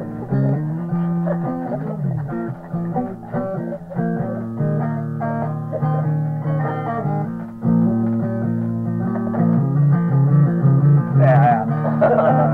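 Blues music instrumental break: a plucked guitar picking changing notes over a steady bass line, with a wavering higher part joining about eleven seconds in.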